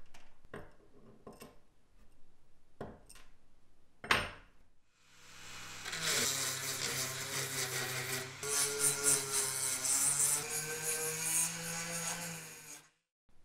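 A few light clicks and taps of small metal toy parts being handled. About five seconds in, a handheld rotary tool starts and grinds into the rusty metal chassis of a 1970s Tonka toy car, a steady motor whine under the grinding, until it cuts off suddenly near the end.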